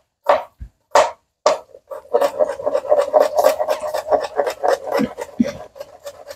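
Kitchen knife chopping seasonings on a plastic cutting board: a few separate chops in the first two seconds, then a fast run of about five chops a second.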